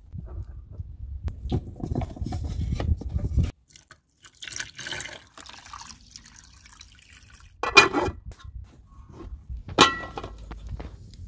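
Water pouring and splashing into a large metal stockpot over a whole goose, then two sharp metal clanks with a brief ringing tone from the pot and its lid. The clanks come about two seconds apart and are the loudest sounds. Before the water there is a few seconds of low, rough handling noise.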